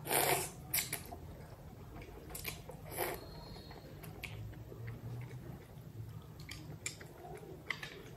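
A person slurping wet noodles from a bowl of noodle soup, with a loud slurp in the first half-second, then chewing with several shorter slurps and mouth noises.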